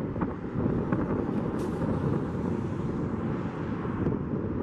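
Gusty wind buffeting the microphone, with the low drone of a jet airliner on final approach faint beneath it.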